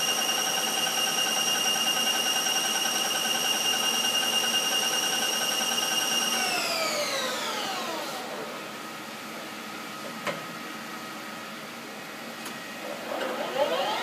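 Bridgeport EZ-Path II CNC lathe spindle running at 1100 RPM with a steady high whine, then winding down over about two seconds to a faint hum. After a click, the spindle starts up again near the end, the whine rising in pitch as it accelerates in the high speed range.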